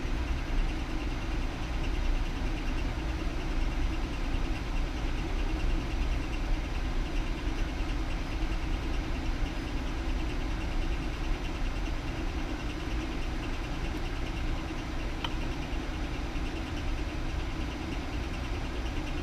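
Powered-up Alunar M508 3D printer giving a steady mechanical hum with a fine, rapid buzz on top, as from its cooling fans and energised stepper motors.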